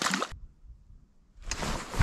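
Handling and movement noise from a head-worn camera: a short, sharp hiss-like burst at the start, then a low rumble, and about one and a half seconds in, louder rustling of heavy winter clothing with buffeting on the microphone as the wearer shifts position.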